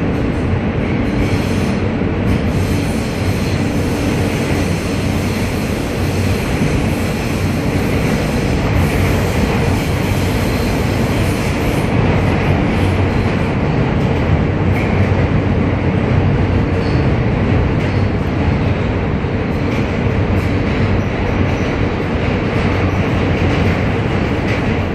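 The running noise of an R160A subway car at speed, heard from inside the car: a steady rumble of wheels on rail with a low hum, and a faint high-pitched ringing over the first half.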